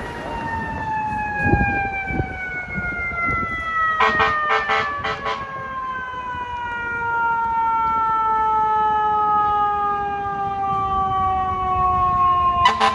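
Fire truck's mechanical siren winding slowly down in pitch in one long wail. About four seconds in there is a rapid string of short horn blasts. Near the end the siren starts winding up again, with more horn blasts.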